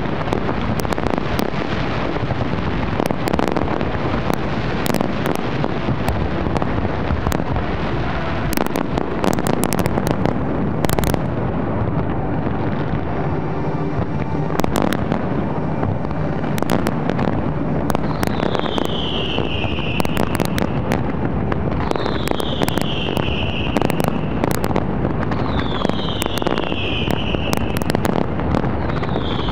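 Fireworks display: a dense, continuous barrage of shells bursting and crackling, with many sharp bangs. The crackle thins briefly about twelve seconds in. From about eighteen seconds in, a high whistle falling in pitch sounds four times, roughly every four seconds.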